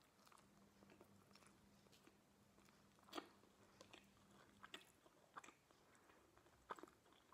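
Faint chewing of a slice of pizza with a crisp bottom crust, with soft mouth clicks and a few small crunches scattered through, the clearest about three seconds in.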